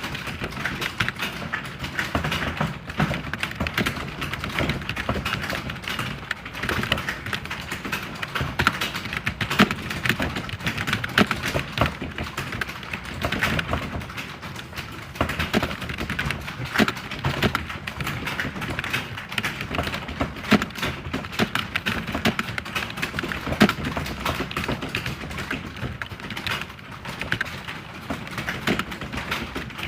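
Computer keyboard being typed on quickly and without pause, a dense stream of key clicks and thuds.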